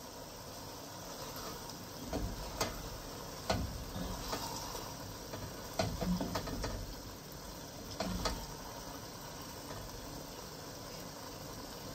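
Pepper-and-tomato sauce hissing gently as it fries in a pot, while a silicone spatula stirs it. Between about two and eight seconds in come a few soft knocks and scrapes of the spatula against the pot.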